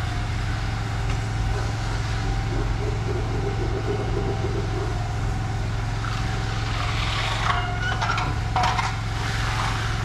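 A heavy engine running steadily with an even low hum, joined in the second half by irregular scratching and clattering.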